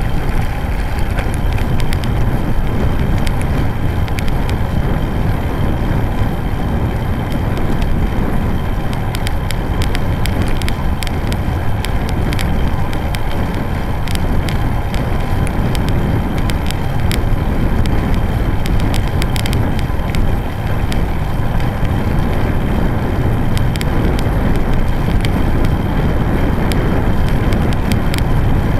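Road bike rolling along a rough paved dike path: heavy wind buffeting on the microphone and tyre rumble, with a constant patter of small clicks and rattles from the bumpy surface.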